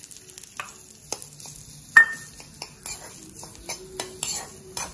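Hot oil sizzling and spattering in a black iron kadai, with scattered crackles and one sharp metallic clink about two seconds in.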